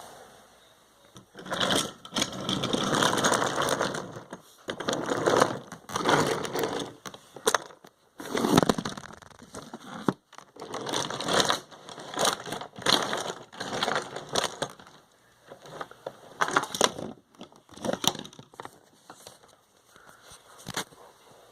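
Toy trains crashing: repeated bursts of clattering and rattling with sharp knocks, stopping and starting again about every one to two seconds.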